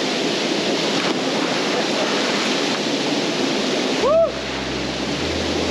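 Steady rush of a waterfall pouring into a pool. About four seconds in, a person gives one short, loud whoop.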